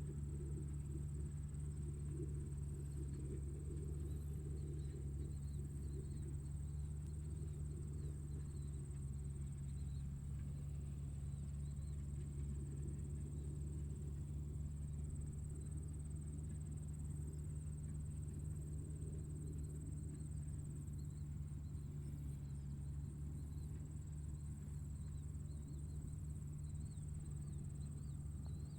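Tractor engine running steadily: a low, even drone with no change in speed. A thin, steady high-pitched tone sits above it.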